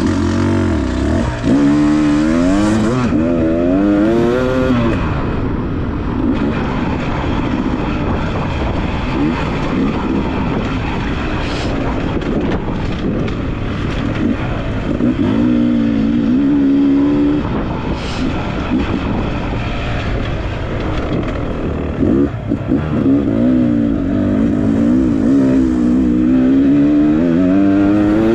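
Dirt bike engine running under load as it is ridden along a trail, the revs climbing and dropping again and again as the rider works the throttle and gears.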